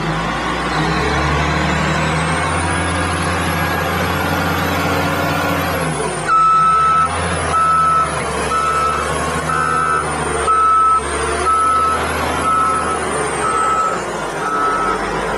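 Large diesel wheel loader's engine running under load, then from about six seconds in its reversing alarm beeping steadily, about one beep a second: the loader is backing up.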